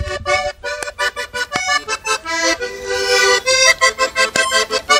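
Diatonic button accordion playing a quick vallenato melody of fast-running notes, the introduction to the next song in a medley.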